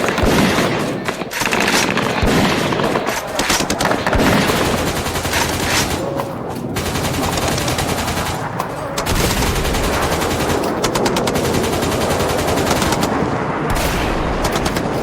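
Sustained automatic gunfire: long strings of rapid shots, with more shots overlapping throughout, like a firefight.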